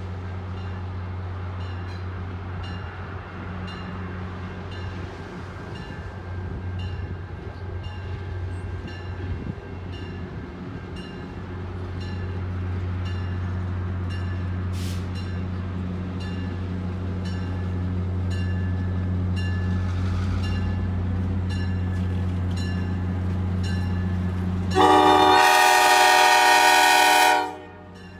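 FL9 diesel locomotive approaching with its engine running in a steady low hum, then one really loud, long horn blast of about two and a half seconds near the end that cuts off sharply.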